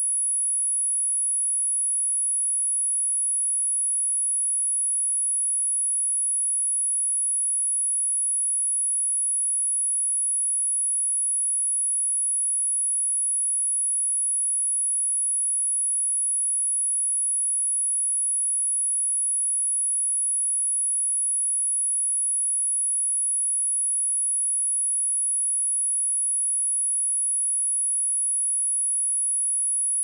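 Steady 10242 Hz sine-wave test tone: one very high-pitched pure tone held without any change. It is played as a speaker test and speaker-cleaning tone, meant to shake water and dust out of a speaker.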